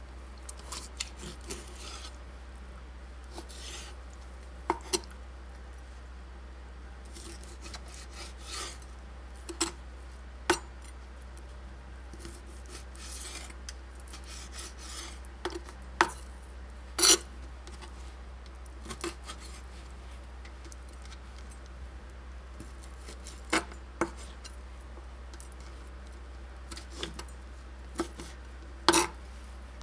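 Chef's knife cutting sheep's heart on a plastic cutting board: irregular sharp taps of the blade striking the board, with softer slicing and scraping sounds between them. A steady low hum runs underneath.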